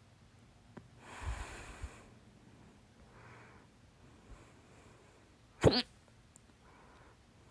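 A single loud, sharp hiccup about two-thirds of the way through, with soft breaths before it.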